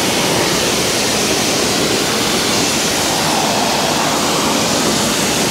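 Steady rushing hiss of a pressure washer's water jet spraying.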